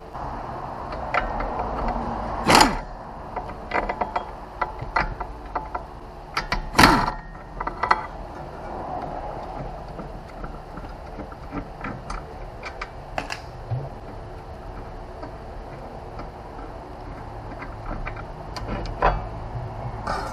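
Hand tools working on a car's rear wheel hub: scattered metallic clicks and ratchet-like ticking, with two loud metal clanks a few seconds apart early on.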